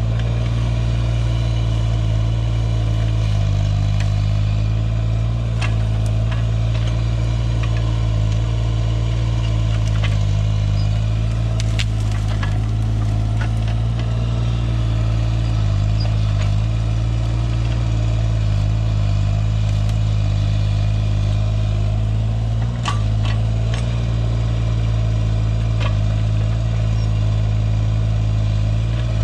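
Skid steer loader's engine running steadily at a constant pitch, with scattered light clicks and clanks.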